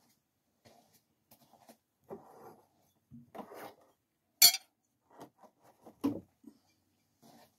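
A thrown GI tanto knife hits the target with a single sharp, loud metallic clank about four and a half seconds in, followed about a second and a half later by a duller thud. A few soft shuffling noises come before the hit.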